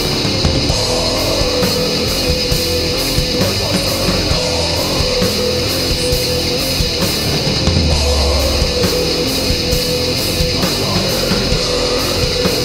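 Blackened doom metal played by a band on distorted electric guitars, bass and drums, dense and steady, with cymbal strikes about three times a second. A low bass note swells about eight seconds in.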